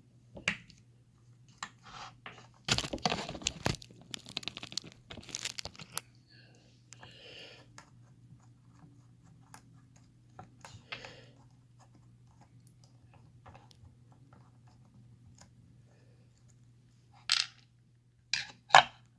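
Metal clicking and scraping of a Nu-Set padlock being handled and taken apart, with a dense run of clicks a few seconds in and a few separate clicks near the end. A steady low hum runs underneath.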